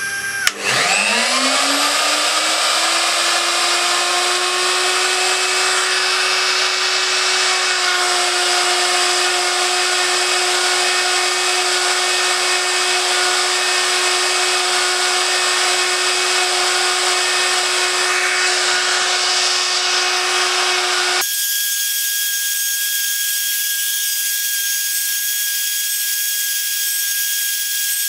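CNC router spindle motor with a 90-degree carbide V-groove bit, engraving plywood. About half a second in, its whine rises in pitch as it spins up, then it runs as a steady high whine with a hiss of cutting. About three-quarters of the way through, the sound changes abruptly to a thinner, higher single whine with hiss.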